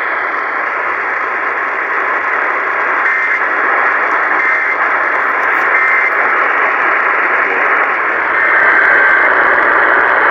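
Radio static: a steady hiss of noise from a radio receiver picking up a weak or empty signal, with a few brief faint tones in it.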